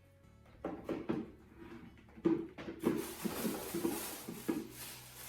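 Clicks and knocks of a plastic Litter Genie pail being handled, then the rustle of its plastic bag liner being worked from about three seconds in.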